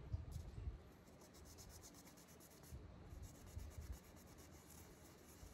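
Near silence with faint handling sounds: light rubbing and a few soft knocks.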